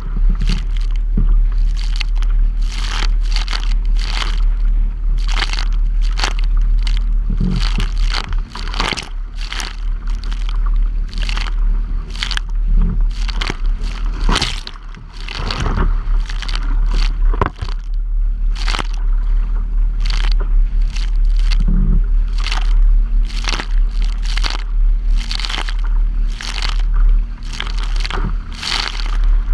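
Choppy lake waves slapping against the plastic bow of a sit-on-top kayak and spraying over it, in sharp splashes over and over, with a steady heavy wind rumble on the bow-mounted camera's microphone.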